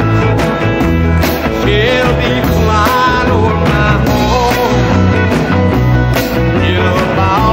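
Country rock / rockabilly band music with a steady beat and a repeating bass line, and bending electric guitar lines over it.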